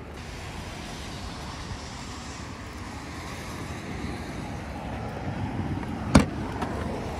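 A road vehicle's noise building slowly over several seconds, with no distinct engine note. About six seconds in there is one sharp knock, the loudest sound here.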